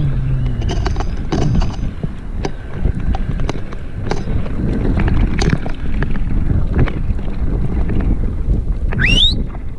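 Mountain bike rattling and knocking as it rides fast down a rough dirt trail, with wind noise on the microphone. A brief rising squeal near the end.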